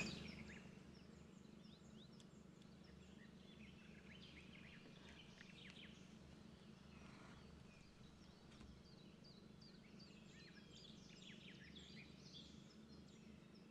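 Faint birdsong: many short, repeated high chirps and whistles from several birds throughout, over a steady low hum. A brief noise at the very start fades away within the first second.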